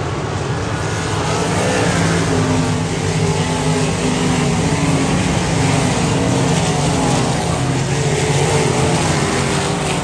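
Several winged sprint cars' V8 engines racing on a dirt oval, overlapping, their pitch rising and falling as the drivers get on and off the throttle through the turns.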